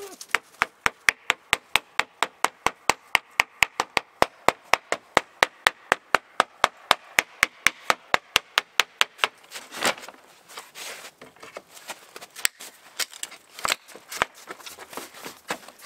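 Claw hammer striking the wooden window frame in a fast, even run of blows, just over four a second, which stops about nine seconds in; then a few scattered knocks as he works the old frame and its nails loose.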